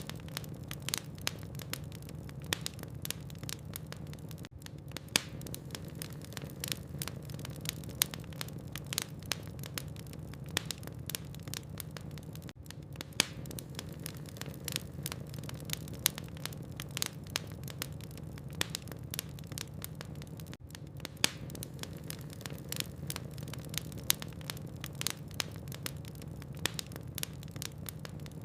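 Wood logs burning in a fireplace, crackling steadily with many small sharp pops and a few louder ones over a low, even rush of the flames.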